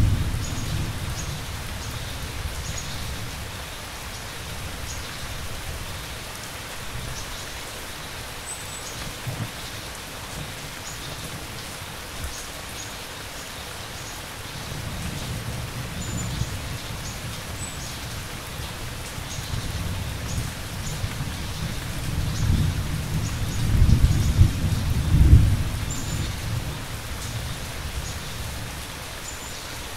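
Steady rain with rolling thunder: a rumble dies away in the first few seconds, then a longer one builds from about halfway and peaks loudest about three-quarters through. Crickets chirp faintly and intermittently above the rain.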